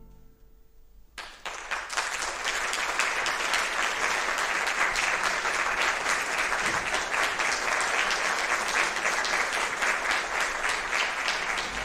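The last note of a string orchestra dies away in a brief hush, then audience applause breaks out about a second in and continues steadily.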